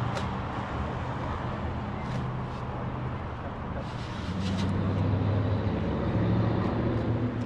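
An engine running steadily, getting somewhat louder about five seconds in, with a few sharp clicks or clanks over it.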